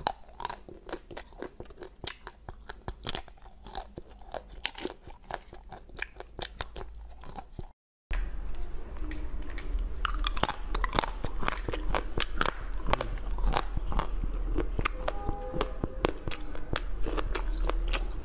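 Crisp crunching and chewing as a mouthful of hard candy is bitten: first a dry instant-noodle-shaped candy cake, then, after a brief silent break about eight seconds in, louder crunching of frozen chocolate pieces.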